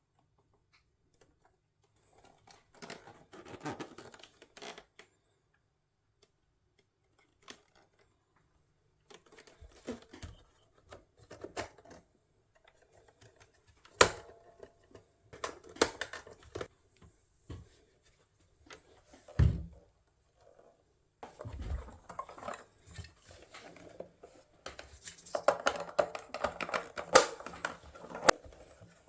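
Hands handling objects at close range: irregular knocks, clicks and scrapes, with stretches of rustling and a few sharper knocks.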